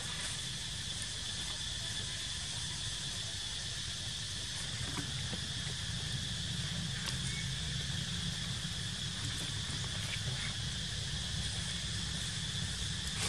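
Steady, high-pitched insect drone with a steady low rumble underneath and a few faint ticks.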